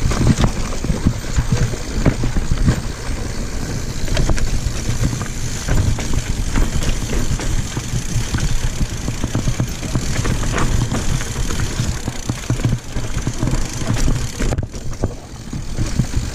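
Mountain bike riding down a rough singletrack trail: a steady rush of wind on the microphone and tyre rumble, with frequent clicks and rattles from the bike over rocks and roots.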